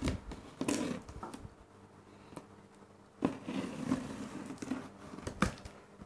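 Packing tape and cardboard of a shipping box being worked open by hand: rustling, scraping and a few sharp clicks, in two bouts with a quieter stretch in between.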